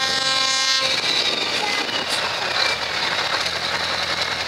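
A truck horn holds one steady note that stops about a second in, then a heavy truck's diesel engine runs loud and rough through an open exhaust pipe as the tractor unit rolls slowly past.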